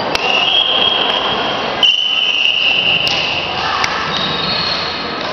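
Sharp slaps of a peteca being struck by hand on an indoor court, echoing in a large sports hall over a constant hum of voices. Two long high squeals run back to back in the first three seconds.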